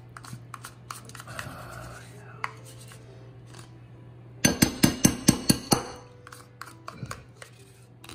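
Metal spoon scraping thick Greek yogurt out of a plastic carton, then a quick run of about eight sharp taps as the spoon knocks the yogurt off into the glass bowl. A steady low hum runs underneath.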